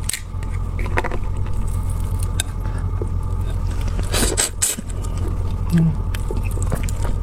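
A steady low hum underneath scattered small clicks and a couple of short crackling bursts from prawns being handled and eaten.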